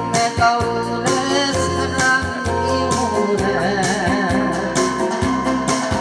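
Korean trot song: a keyboard-and-organ backing track with a steady beat, and a man singing into a microphone over it.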